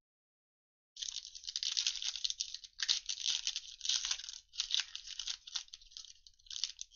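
Foil trading-card pack wrappers (2021 Panini Illusions retail packs) crinkling and tearing as they are ripped open by hand, starting about a second in, with a couple of sharp clicks near the middle.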